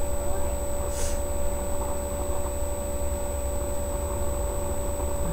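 Steady low rumble and electrical hum with a constant thin high whine: background noise with no distinct sound event. A brief faint hiss comes about a second in.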